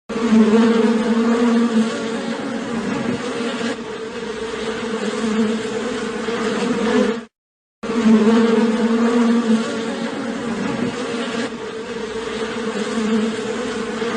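Insect buzzing sound effect, a steady droning buzz like a bee or fly, played twice with a short break about seven seconds in.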